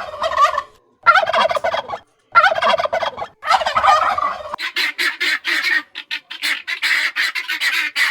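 Turkeys gobbling: four rattling gobbles of about a second each, followed from about halfway through by a fast run of short, sharp calls.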